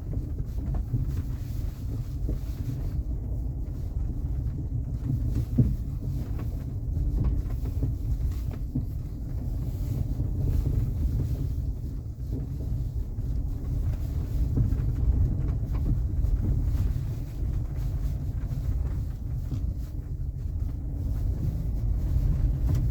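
Chery Tiggo 8 Pro Max driving over rough crushed concrete, heard from inside the cabin: a steady low tyre and suspension rumble with irregular knocks from the front, one sharper knock about five and a half seconds in. The owner takes the knocking, which comes through to the steering wheel, for a worn steering rack.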